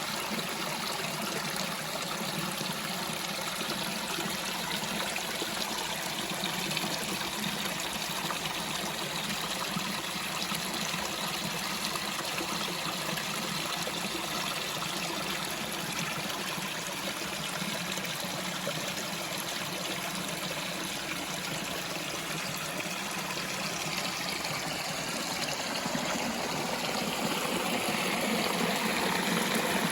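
Water from a small waterfall splashing and running steadily over rocks, a continuous rushing and trickling that grows a little louder near the end.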